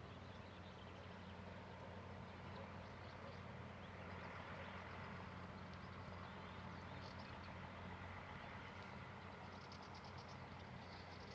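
Faint outdoor ambience: insects chirping in rapid, high pulsing trills that come and go, strongest in the second half, over a steady low hum.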